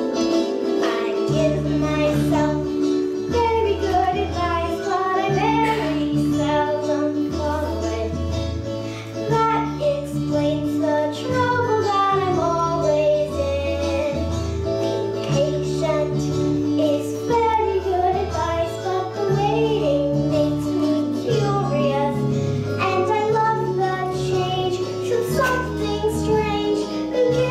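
A child singing a song over an instrumental accompaniment with plucked guitar and a bass line that changes note about once a second.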